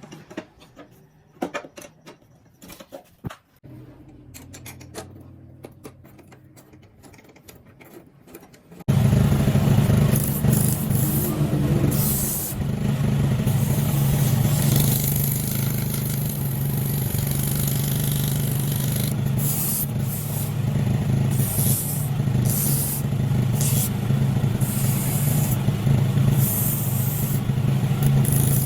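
A few light clicks and knocks in quiet, then about nine seconds in the Honda CG 125's air-cooled single-cylinder four-stroke engine is heard running steadily at idle.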